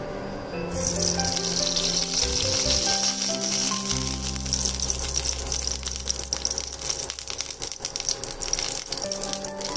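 Cooking oil poured into a hot non-stick frying pan, sizzling and crackling; the sizzle starts suddenly about a second in and fades near the end, over soft background music.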